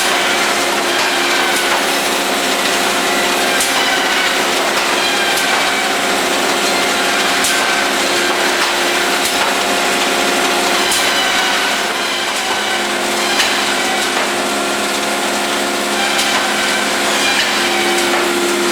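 Bandsaw running and cutting wood: a steady machine hum with sawing noise, and a short high sliding sound that recurs about every two seconds.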